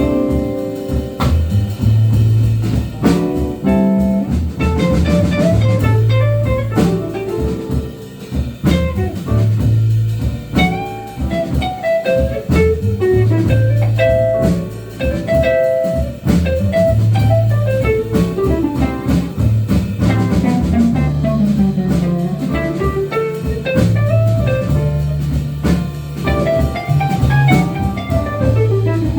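Live soul-jazz band playing an instrumental passage: a melodic solo line over a bass line and a drum kit keeping a steady beat.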